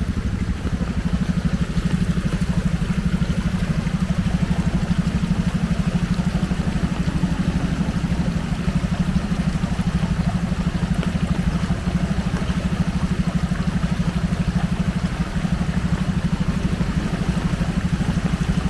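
A small engine running steadily at idle with a fast, even pulse.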